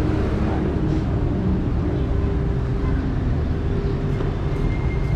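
Steady motor-vehicle rumble of city street traffic, engine and road noise, with an engine tone rising slightly near the end.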